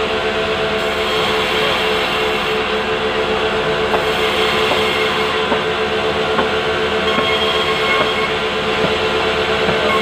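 Sawmill saw running steadily and cutting a squared timber as it is pushed through: a loud, even machine hum with a constant pitch and a few light ticks.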